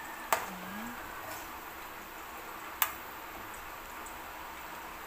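Metal ladle clinking against a steel wok while stirring, two sharp clicks about two and a half seconds apart, over a low steady hiss.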